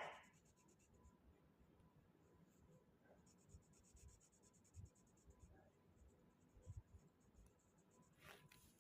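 Very faint scratching of drawing strokes on a surface, coming in two stretches as rapid, even ticking, over near-silent room tone. There is a short sharp sound at the very start and a brief scrape near the end.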